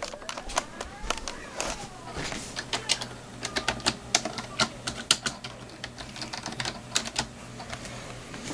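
A run of quick, irregular clicks, several a second in short clusters, thinning out near the end.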